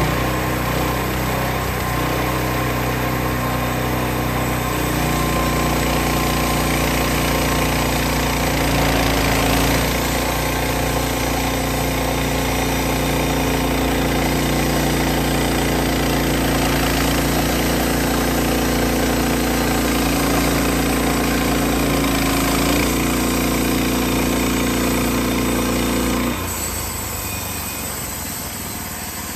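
Portable band sawmill's engine running at steady throttle, its pitch shifting slightly several times as the load changes, with a hissing haze over it. About 26 seconds in the engine note and level drop suddenly.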